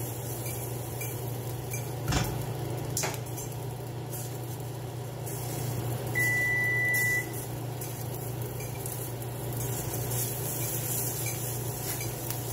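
A kitchen appliance gives one electronic beep, a steady tone lasting about a second, near the middle, over a steady low hum. A short knock about two seconds in, like a pan or utensil being set down.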